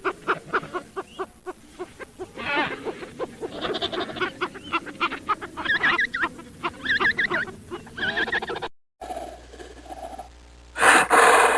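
Animal calls: a rapid, chattering run of pitched, wavering cries, then after a sudden cut a loud, rough roar near the end.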